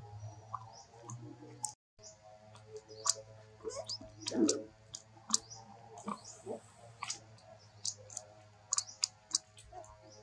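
A monkey chewing green lotus seeds: irregular crisp clicks and crunches, with one louder, deeper crunch about four and a half seconds in. Faint steady background music underneath.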